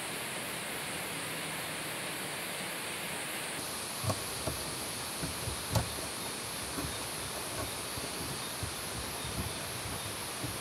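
Steady outdoor hiss, then from about four seconds in a handful of light knocks and taps as split bamboo strips and poles are handled.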